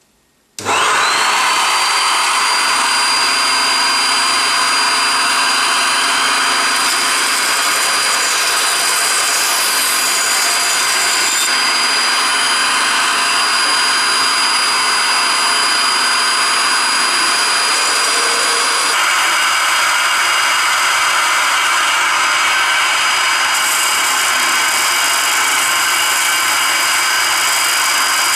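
Woodworking power tools running steadily: a dust-extraction vacuum starts with a rising whine about half a second in and runs throughout, while a Scheppach scroll saw cuts a thin wooden piece. In the later part a Parkside bench sander runs against wood.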